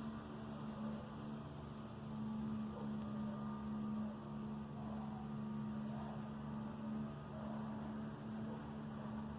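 A steady low droning hum, with faint scattered sounds in the distance over it.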